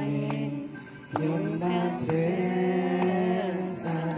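A group singing a worship song, led by a voice through a microphone and loudspeaker, in long held notes with a sharp beat about once a second.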